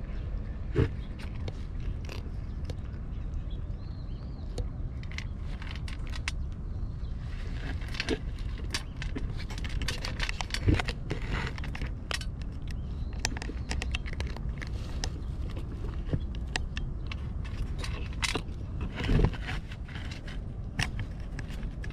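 Cats eating, with irregular crunching clicks over a steady low background rumble. A few louder thumps come about a second in, near the middle and near the end.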